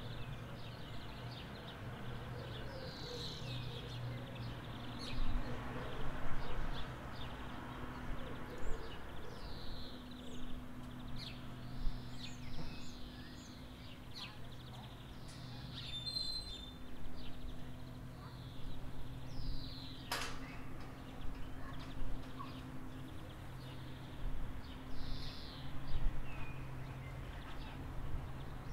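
Birds chirping with short falling calls, again and again, over a steady low hum.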